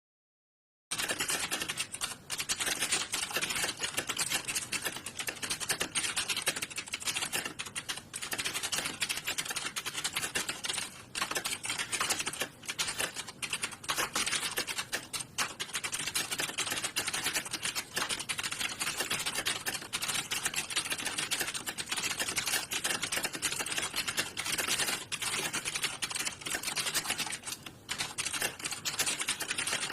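Computer keyboards being typed on fast and without a break, a dense stream of key clicks, the sound of a typing-test exam hall. It starts suddenly about a second in.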